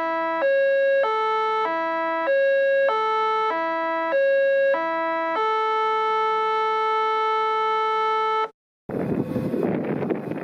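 A synthesized intro jingle: a simple melody of short electronic notes stepping between a few pitches, ending on one long held note that cuts off suddenly about eight and a half seconds in. After a brief gap, wind noise on the microphone begins near the end.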